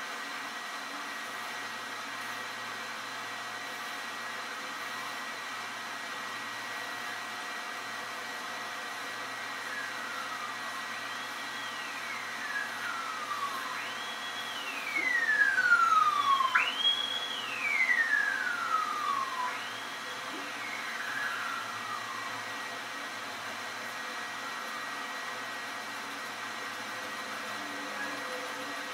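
A siren making about five sweeps, each a quick rise and then a slow fall in pitch over about two seconds. It grows louder toward the middle and then fades away, over a steady background hiss.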